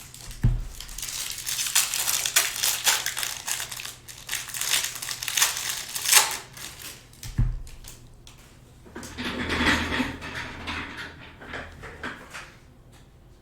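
Plastic wrapping crinkling and being crushed in the hands, with a run of crackles for the first several seconds and softer rustling later. Two dull thumps come through, one just after the start and one past the middle.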